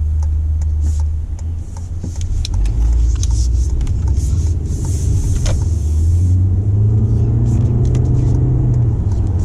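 Toyota C-HR 2.0-litre four-cylinder engine and road rumble heard from inside the cabin while driving, with a few faint clicks and rattles; about six and a half seconds in, the engine note rises and holds higher as the car accelerates through its CVT.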